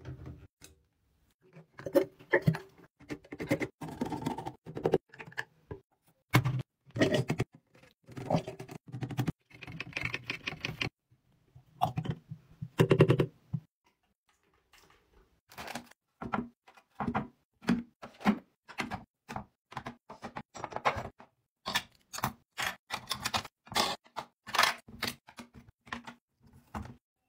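Plastic and metal bathroom containers and dispenser fittings being handled and set in place: a quick string of clicks, taps and rattles, with a short pause about halfway.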